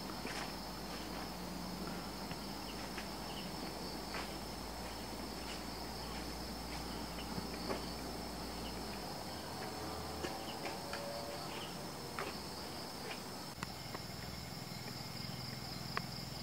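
Chorus of crickets and other insects droning steadily at a high pitch, with a few scattered soft clicks and crackles.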